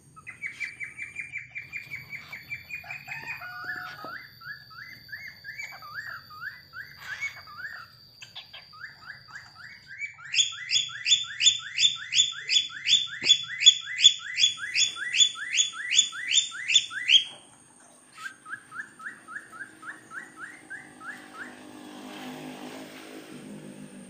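Cockatiel singing: runs of quick, rising whistled notes repeated about three to four times a second, the loudest and highest run in the middle, a softer shorter run after it.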